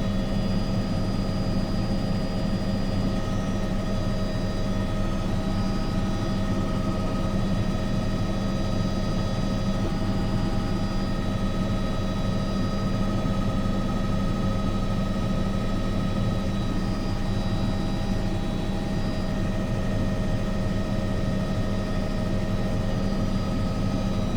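Steady drone of an aircraft in flight, a constant hum with several unchanging tones that does not rise or fall.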